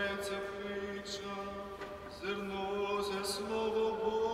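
Choir chanting a Byzantine-rite liturgical response in harmony, on long held notes, the upper voice stepping up about three and a half seconds in.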